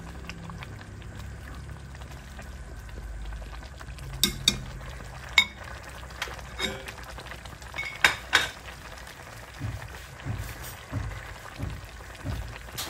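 A pot of noodle soup bubbling on a gas stove while a metal ladle stirs it and clinks sharply against the pot, several times around the middle. Later come dull low thuds, which the cook puts down to noisy workers upstairs.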